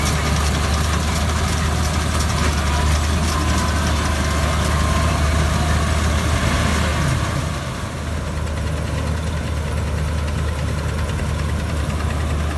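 Guru Nanak 985 combine harvester's diesel engine and threshing machinery running steadily while cutting paddy, a deep continuous hum; about eight seconds in the sound dips briefly and turns duller.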